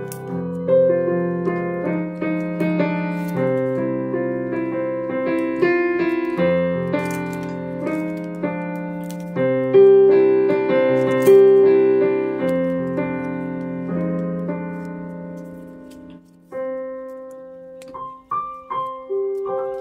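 Background piano music: a gentle melody over chords, thinning to a few single notes near the end.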